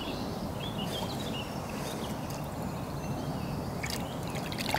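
Steady outdoor background noise with a few faint bird chirps about a second in and a couple of faint clicks near the end.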